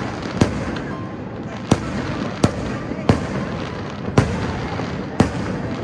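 Aerial fireworks shells bursting: six sharp bangs at roughly one-second intervals, each followed by a short echoing tail, over a steady background rumble.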